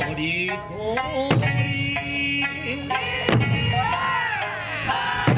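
Okinawan eisa music: a sung folk melody over a big drum struck about every two seconds.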